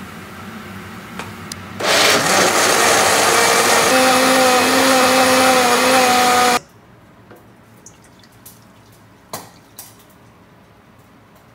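An ordinary countertop blender runs at full speed for about five seconds, grinding soaked soybeans and water into soy milk. Partway through, its motor settles into a steady whine, and then it cuts off abruptly. After that come a few faint clicks and one sharper knock.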